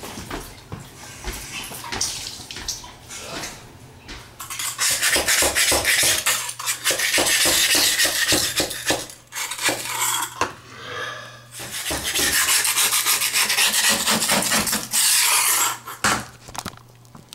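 Metal scraper blade scraping old grout off the floor around a toilet flange, in rapid rasping strokes. It grows loud about four seconds in, pauses briefly twice, and stops near the end.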